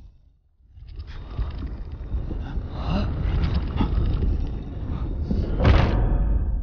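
Heavy stone block grinding as it slides back into a rock wall, a low rumble with a louder surge near the end before it stops abruptly.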